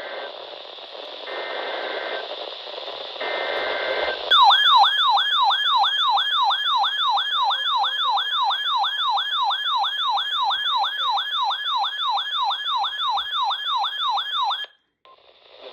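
Weather radio alert over radio hiss: three short bursts of two-tone SAME data header, then a loud warbling alert siren, a falling sweep repeated about three times a second, which cuts off suddenly after about ten seconds.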